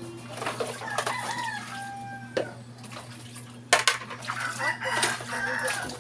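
A rooster crows twice, each crow about two seconds long, with a short clatter of dishes between them.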